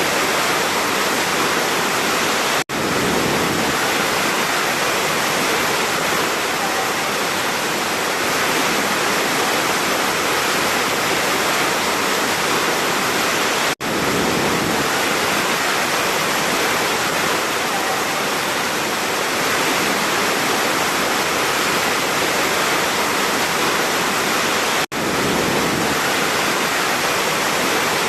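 Large waterfall rushing steadily, a loud, even roar of falling water. The sound cuts out for a split second three times, about eleven seconds apart.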